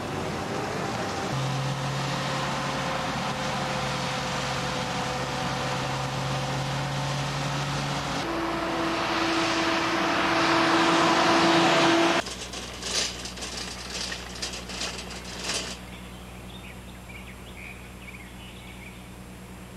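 Car engines and traffic on a street, one car passing close and getting louder. The sound then cuts to a quieter scene of a shopping cart being pushed along a road, its wheels and wire basket rattling and clicking for a few seconds.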